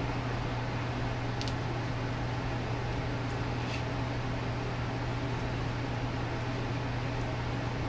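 Steady low hum over an even hiss, like a fan or other appliance running in a small room, with two faint light clicks from hands handling card and string, about a second and a half in and again near four seconds.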